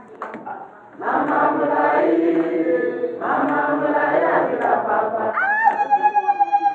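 A group of people singing together in a hall. About five seconds in, a high, rapidly trilling call rises over the singing and is held.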